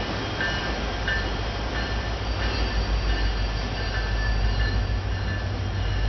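Diesel freight locomotives approaching, a steady low rumble that grows slightly louder. Short, thin high-pitched tones come and go above it.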